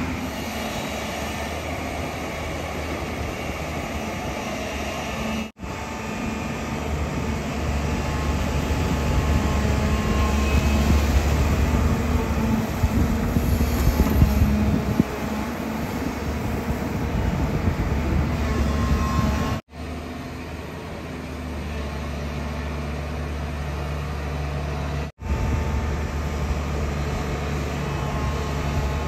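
JCB JS205 tracked excavator's diesel engine running steadily under load while the machine digs wet sand, louder for a few seconds in the middle. The sound breaks off for an instant three times.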